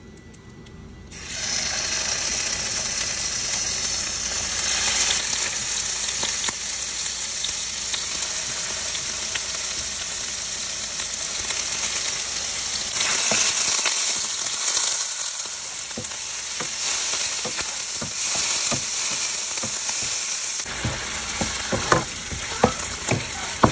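Raw chicken pieces sizzling as they fry in hot butter and oil in a pan. The steady frying hiss starts about a second in, and in the second half the pan is stirred, adding clicks and scrapes.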